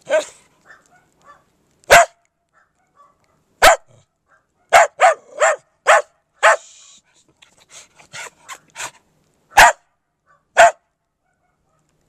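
A small wire-haired terrier-type dog barking, about a dozen short, sharp barks in quick volleys of two to four, with pauses between. It is playful barking at the person filming: the dog drops into a play bow.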